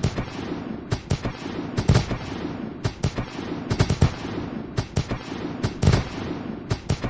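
Fireworks display going off: a rapid, irregular run of sharp bangs from bursting shells, several a second, over a steady hiss.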